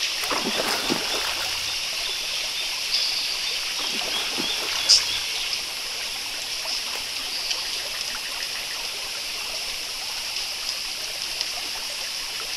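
Flowing stream ambience: steady trickling and rushing water, with one short sharp sound about five seconds in.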